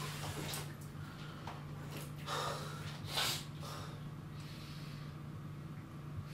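A man washing his face at a sink, blowing out breath sharply through wet hands twice, about two and three seconds in, the second puff the loudest. A steady low hum runs underneath.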